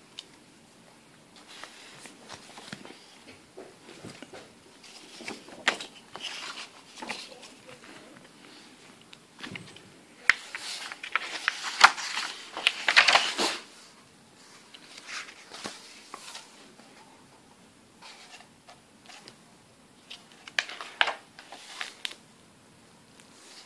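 Pages and cover of a large hardcover comic book being handled and turned by hand: paper rustling and sliding in short, irregular bursts, loudest in a run of rustles about halfway through and again near the end.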